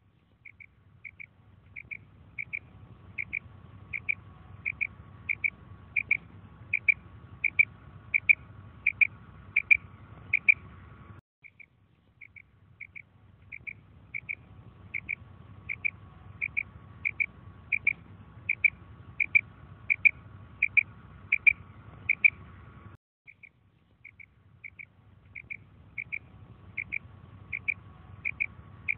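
Female common quail giving its "krik" call: short, high notes about two a second, growing louder over some ten seconds. The run then breaks off and starts again, three times in all.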